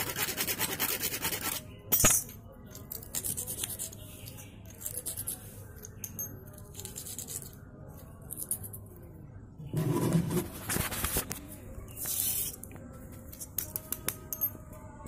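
Hacksaw blade scraping against a piece of iron to grind off iron filings, in short bursts of rasping strokes with pauses between. There is a sharp knock about two seconds in and a louder handling rustle about ten seconds in.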